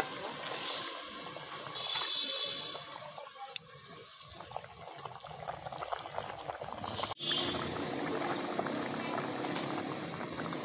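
Chicken curry boiling hard in an aluminium pot, bubbling and popping steadily; the sound changes abruptly about seven seconds in.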